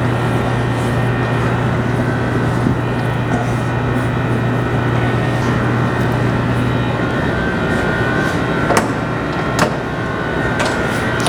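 A steady machine hum: a low drone over a rushing noise, broken by two sharp knocks near the end.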